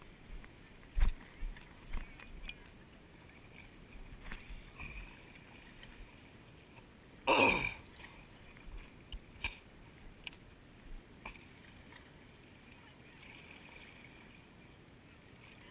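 Scattered clicks and knocks from handling a fishing rod and spinning reel. About seven seconds in there is one loud whoosh that falls quickly in pitch, likely the rod swinging through a cast.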